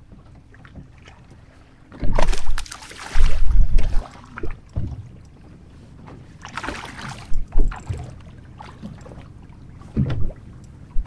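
Water splashing and lapping against the side of a bass boat, with loud gusts of wind buffeting the microphone about two and three seconds in, and a low thump near the end.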